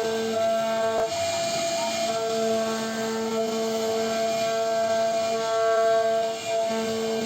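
CNC router spindle whining steadily as it carves wood, several fixed pitches held together with some dropping out and returning as the cut changes.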